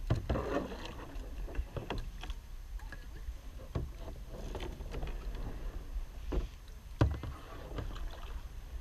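A plastic kayak being paddled and pushed through a shallow, log-choked channel: irregular paddle splashes with knocks and scrapes against the hull and branches, and one loud thump about seven seconds in.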